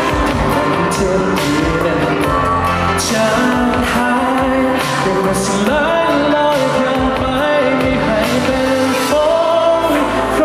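A male singer performs a Thai pop song live, holding and bending sung notes over amplified instrumental accompaniment with a drum beat.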